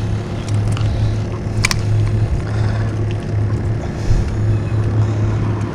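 Steady low engine hum with a few light clicks over it.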